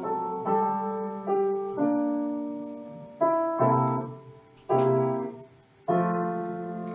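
Piano accompaniment playing a short instrumental bridge between two songs of a children's medley: a series of chords, each struck and left to fade.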